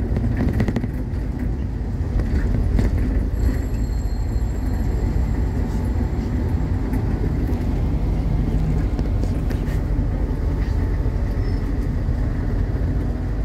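Cabin noise inside a moving MAZ-216 city bus: a steady low rumble of engine and road, with a few faint clicks.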